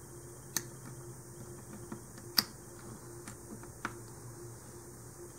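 A few small, sharp clicks and taps of plastic clock parts being handled and pried apart, the loudest about two and a half seconds in.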